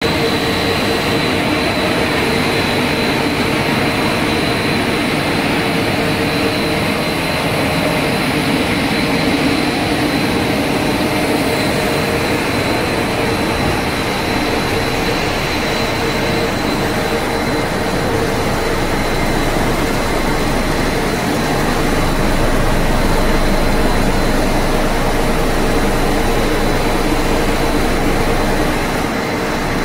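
Puffed-snack extrusion production line running: a steady, loud machine noise of motors and conveying blowers with a constant high whine.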